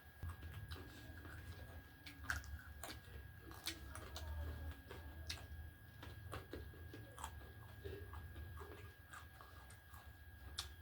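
Faint close-up eating sounds: food being chewed, with many small irregular clicks and smacks.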